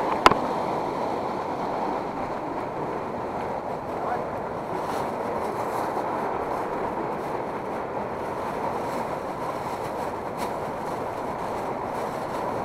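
Steady rush of river water, with one sharp click shortly after the start.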